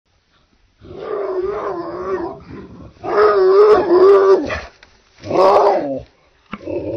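A large dog's deep, drawn-out growling howls, three long wavering calls, the first starting about a second in.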